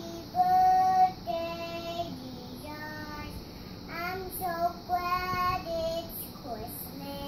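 A young boy singing a song alone, without accompaniment, in held notes of about half a second to a second each, loudest about half a second in.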